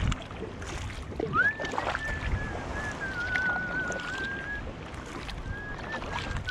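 Double-bladed kayak paddle dipping and pulling through calm sea water, with splashes and drips off the blades. A thin, wavering whistled note rises about a second in and runs past the middle, then comes back briefly near the end.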